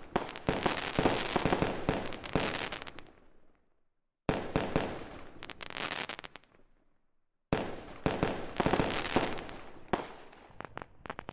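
Aerial fireworks bursting, with many sharp bangs and crackles in quick succession. They come in three stretches that each start abruptly, split by two short silences.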